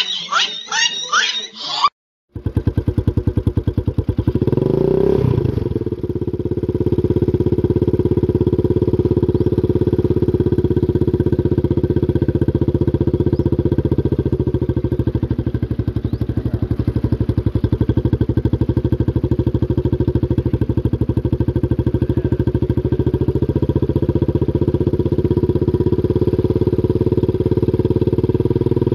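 A small engine running steadily after a brief gap, its firing pulses rapid and even, with a short rev up and back down about five seconds in.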